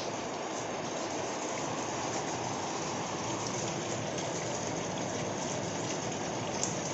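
Rainwater gushing from the open end of a drainpipe and splashing onto a concrete floor, a steady rushing splash.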